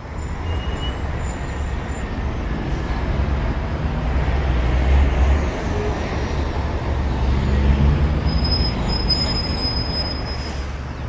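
City street ambience: a steady, deep rumble of heavy traffic. About eight seconds in, a thin high squeal sounds for roughly two seconds.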